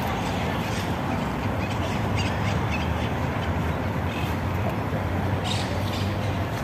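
Outdoor park ambience: a handful of short bird chirps over a steady low rumble.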